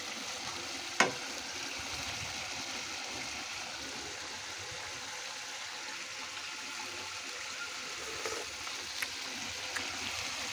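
Egg curry sizzling and bubbling in an open steel pan on a gas flame: a steady hiss, with one sharp click about a second in and a few light clicks near the end.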